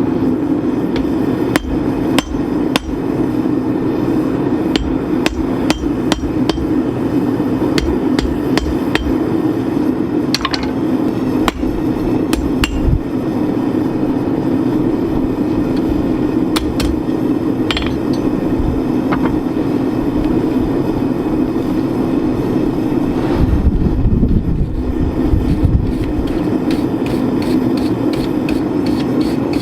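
Hand forging of iron hooks: hammer blows on hot iron over an anvil, coming at irregular intervals, some strikes leaving a short metallic ring. A steady hum runs underneath.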